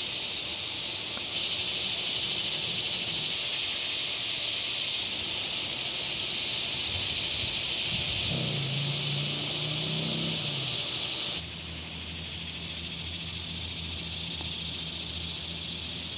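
Dense chorus of cicadas, a steady high-pitched buzzing hiss. A low hum joins about halfway through and stays to the end.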